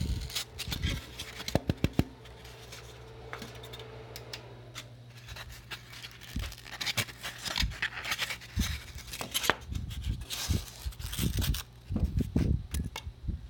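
A workpiece being handled and pushed across the table of a scroll saw converted to a hot wire cutter: a few sharp clicks in the first two seconds, then uneven scraping and rustling, over a steady low hum.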